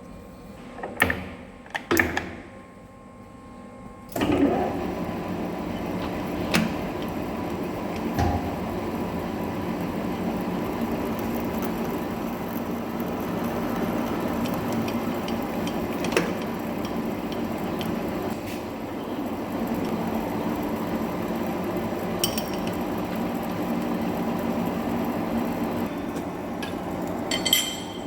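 A few sharp metal knocks from handling the work or tooling, then a large metal lathe starts about four seconds in and runs steadily.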